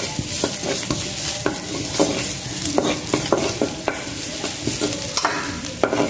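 Chopped garlic sizzling as it is sautéed in a nonstick wok, with a wooden spatula scraping and knocking against the pan in short, irregular strokes as it stirs.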